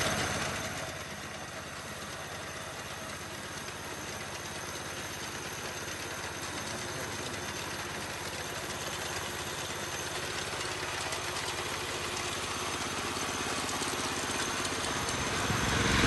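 Small 7 hp four-stroke engine of a walk-behind two-wheel mini tractor running steadily under load while its front reaper attachment cuts crop, growing louder near the end.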